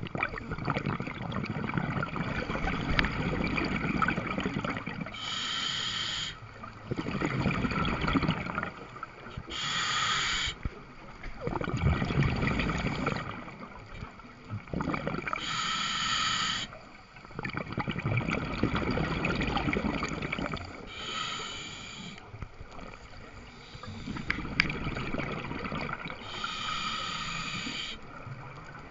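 Scuba diver breathing through a regulator underwater: a short hissing inhalation through the demand valve, then a longer exhalation of bubbling exhaust, repeated about five times.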